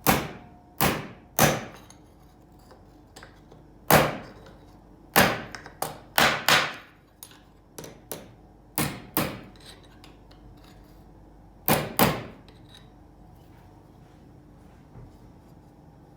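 Hammer blows straightening the bent rod of a turbocharger's wastegate actuator: about a dozen sharp metal strikes, mostly in quick pairs with pauses between, stopping a few seconds before the end.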